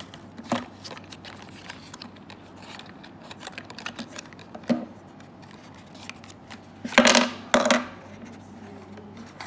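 Rustling and clicking of a small cardboard box as its flaps are opened and its contents taken out. There are two louder bursts of cardboard scraping about seven seconds in.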